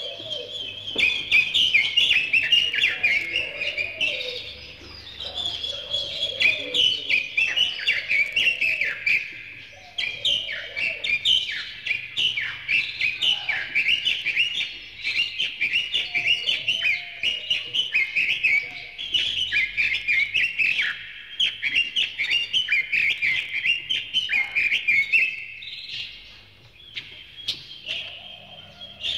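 Small songbirds chirping and twittering in a dense, rapid chatter, with lower warbled notes mixed in now and then; it dies away near the end.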